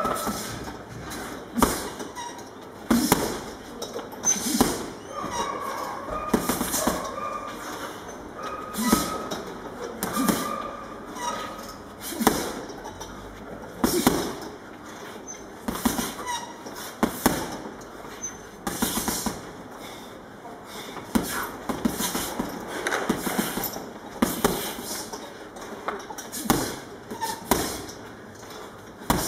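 Boxing gloves punching a hanging heavy bag: sharp slaps and thuds, landing as single punches and quick flurries of two or three at uneven intervals.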